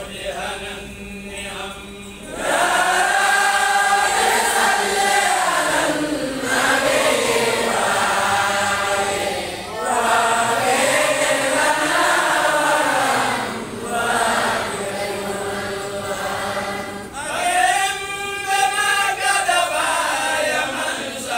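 Men's voices in Islamic devotional chanting, led into a microphone, in about five long drawn-out phrases that rise and fall in pitch, with short breaks for breath between them.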